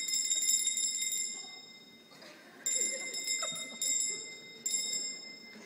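A small bell rung in rapid trills, four times: one long ring of about two seconds, then three shorter rings about a second apart.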